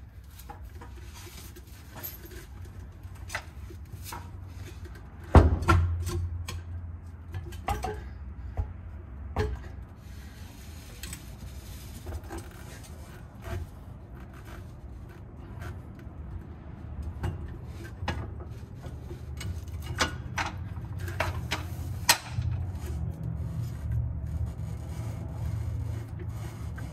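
Metal clinks, knocks and rubbing from a trailer axle, its mounting bracket and a bolt being handled and fitted by hand, over a low steady hum. A sharp knock about five seconds in is the loudest sound, and another comes near the end.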